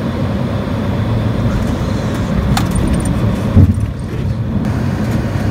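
Boeing 737 flight-deck noise at touchdown: a steady rush of airflow and engines, with a sharp click about two and a half seconds in and a heavy thump about a second later as the wheels meet the runway.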